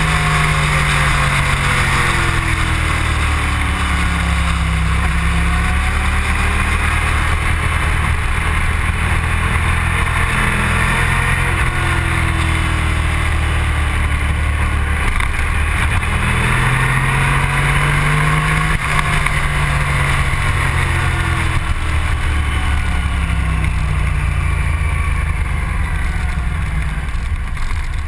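Motorcycle engine heard from onboard over a steady rush of wind. The engine note falls at first, rises again about halfway through, then drops away as the bike slows.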